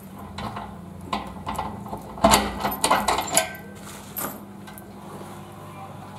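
Metallic clicks and clanks as a padlock is undone and a sheet-metal cabinet door is pulled open, the loudest knocks between about two and three and a half seconds in, over a steady low hum.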